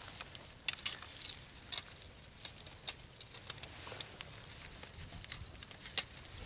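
Scattered light crackles and small clicks of dry grass and the trap's metal being handled as a trap is set by hand, with a few sharper clicks standing out.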